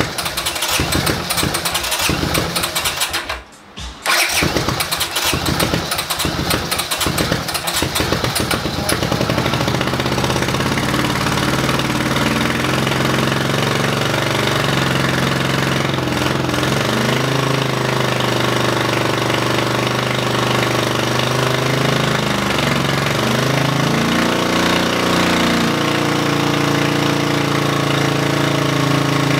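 Honda CX motorcycle V-twin being started: it fires unevenly in ragged pulses, almost dies briefly, then catches about nine seconds in and runs through its new exhaust, the revs rising and falling with the throttle. It is only firing on one cylinder.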